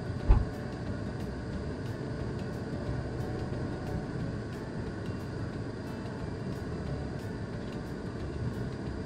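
Car driving slowly, heard from inside the cabin: a steady low rumble of engine and road noise, with one low thump about a third of a second in.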